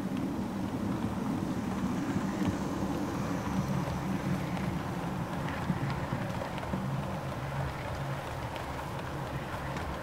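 OO gauge model train, a Merchant Navy class locomotive with Pullman coaches, running past close by. It makes a steady rolling rumble and motor hum, a little stronger in the first few seconds as the locomotive goes by, with faint light ticks from the wheels on the track.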